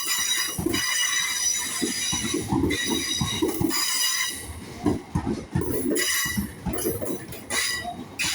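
Freight train wheels squealing on the rails as the train shunts, a high-pitched screech that comes and goes, over irregular clanks and thuds from the wagons.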